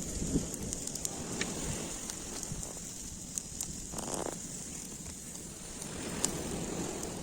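Open cooking fire crackling under grilling chicken: scattered sharp pops over a steady hiss.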